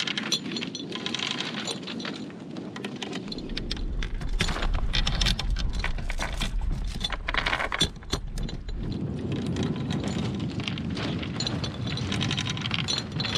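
Anchor chain clanking and rattling link by link over the bow roller as the anchor is hauled up, with a low rumble for several seconds in the middle.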